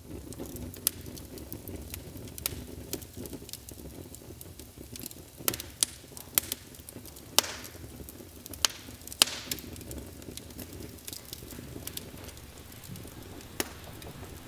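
Wood fire crackling, with irregular sharp pops over a low steady rumble; the pops come thickest in the middle of the stretch.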